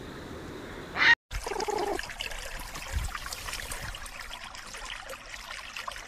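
A great egret gives one short, loud, harsh croak about a second in, cut off abruptly. Then comes water trickling and crackling with scattered small clicks.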